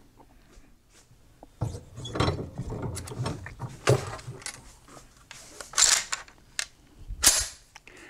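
Knocks, clicks and rattles of an M1A rifle being picked up off a workbench and handled, followed by two louder brushing swishes in the last few seconds.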